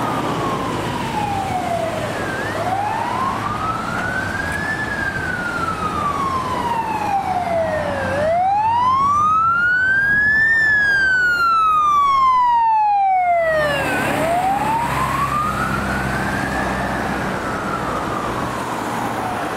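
Fire engine siren on a slow wail, gliding up and down about once every six seconds, loudest in the middle as the truck passes close, with its engine running underneath.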